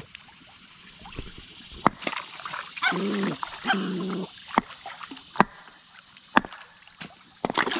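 A dog giving two short pitched calls in quick succession about three seconds in, with a few sharp knocks scattered through.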